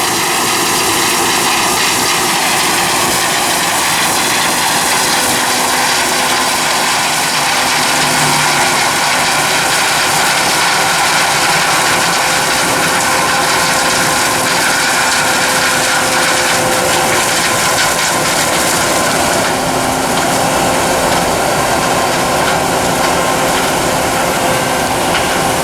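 Combine harvester running steadily while harvesting corn: a loud, even machinery drone with several steady whining tones over it.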